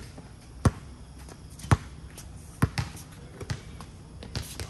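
A basketball bouncing on a hard outdoor court: sharp single impacts about a second apart, with a couple of quicker pairs later on.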